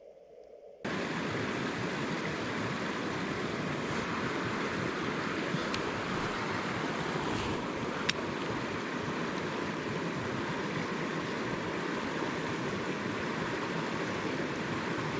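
Steady rush of flowing stream water that starts suddenly about a second in, with two faint clicks partway through.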